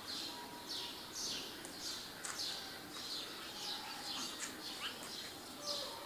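Small songbirds chirping at dawn: a steady run of short, high, falling chirps, about two or three a second, several birds overlapping.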